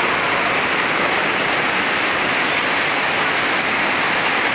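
Heavy rain falling steadily onto paving and plants, a dense, even hiss of water.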